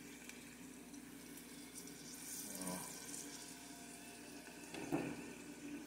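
Dried squid frying in oil in a small pot over a low flame: a faint, steady sizzle with light crackling. A brief knock about five seconds in.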